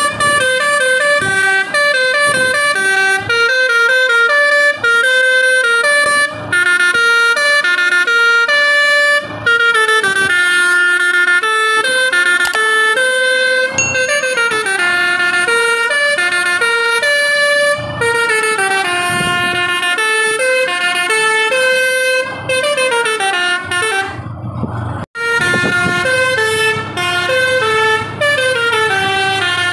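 Basuri V3 telolet bus horn, a set of top-mounted air-horn trumpets, playing a melody note after note. Around 24 seconds in it rises in a sweep and cuts out for a moment, then plays on.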